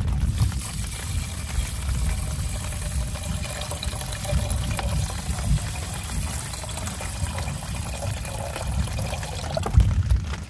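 Water poured in a steady stream from a plastic water container into a metal camping cookpot of rice, splashing as the pot fills.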